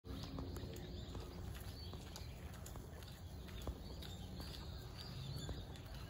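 Faint, short high chirps of small birds scattered over a steady low rumble, with light clicks here and there and one soft thump a little past the middle.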